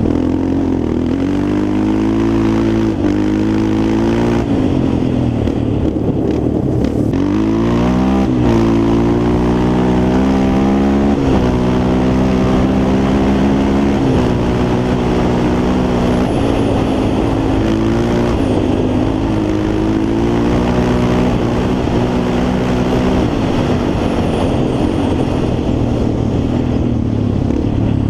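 Yamaha Raptor 350 quad's single-cylinder four-stroke engine under riding load, revs rising and falling, with a sharp climb about eight seconds in and several steps down in pitch after it.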